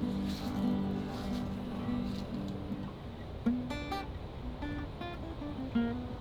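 Acoustic guitar played unaccompanied as a warm-up before a song: notes ringing together at first, then single picked notes, a couple of them sliding in pitch, in the second half.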